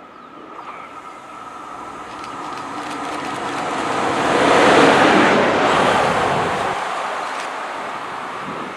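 A train passing by. The rushing noise builds to a peak about five seconds in, then fades away.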